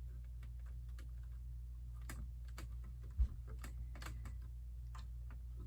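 LEGO plastic pieces being handled and pressed together: scattered, irregular light clicks, with one low thump about three seconds in.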